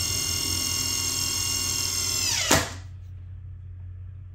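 Ryobi cordless drill boring a pilot hole into a pine board: a steady motor whine that winds down in pitch and stops with a sharp click about two and a half seconds in.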